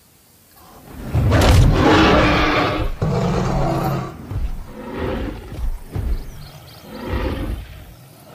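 Dinosaur roar sound effects. A long, loud roar starts about a second in, followed by several shorter roars.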